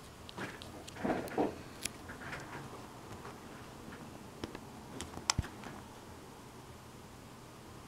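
Handling noise as a plastic Swatch watch is picked up and held between the fingers: rustling and knocks in the first two seconds, a few sharp clicks about five seconds in, then faint room tone.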